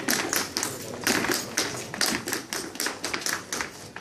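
Irish set dancers' shoes tapping and stepping on a wooden dance floor: a quick, irregular run of sharp taps, about five or six a second.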